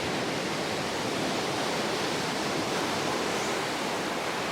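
Sea waves washing onto the shore: a steady rushing noise that swells a little in the middle.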